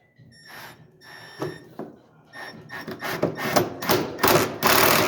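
Cordless drill driving a screw into wood: several short pulses of the motor, then a longer, louder run near the end as the screw goes home.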